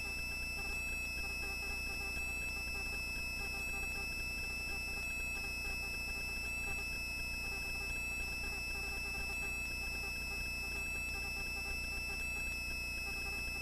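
Helicopter in flight, heard as a steady low hum with a steady high-pitched whine over it and faint, even pulsing underneath.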